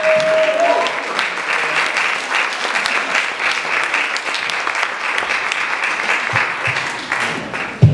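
Audience applauding, a steady dense clatter of many hands clapping. A single loud thump comes near the end.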